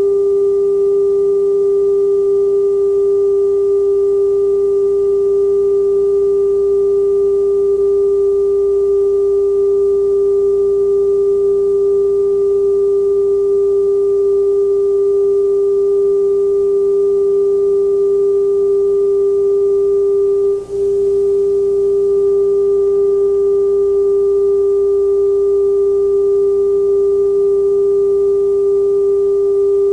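Television broadcast test tone sounding with a station test pattern: one steady, unchanging pitch with a brief dropout about 20 seconds in.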